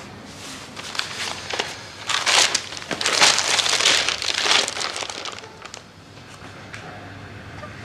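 Newspaper rustling and crinkling as it is unfolded and handled, loudest between about two and five seconds in, then dying down.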